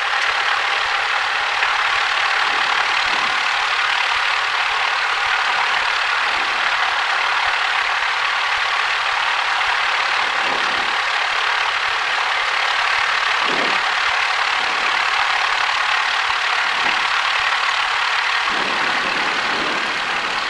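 Steady cockpit noise of a Cessna 172 with its engine running, an even hiss-like drone with no change in level.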